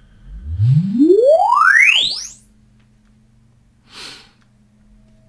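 Sine-sweep measurement tone from loudspeakers, gliding from deep bass up to a high whistle in about two seconds, played by a DSP's automatic phase measurement. About four seconds in there is a brief soft rush of noise.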